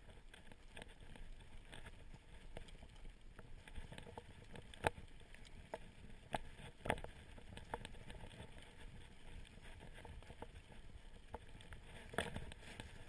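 Mountain bike rolling down a leaf-covered dirt trail: a low rustle of tyres on dirt and dry leaves, with sharp knocks and rattles from the bike as it hits bumps, the loudest about five seconds in and again near seven seconds.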